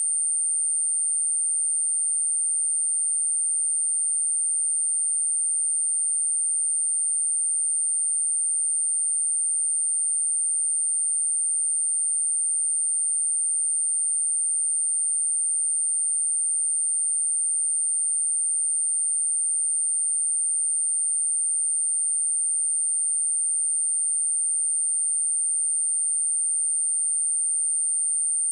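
A pure 8921 Hz sine-wave test tone, a steady high-pitched whistle held at one pitch and level without a break.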